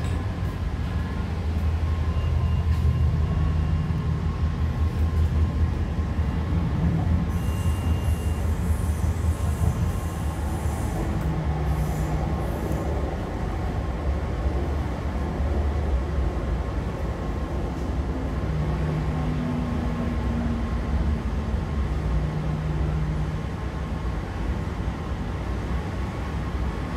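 Running noise heard inside a moving MTR C-Train carriage: a steady low rumble of wheels on rail, with the traction motors' hum rising and fading in several stretches. The noise eases a little near the end as the train draws along a station platform.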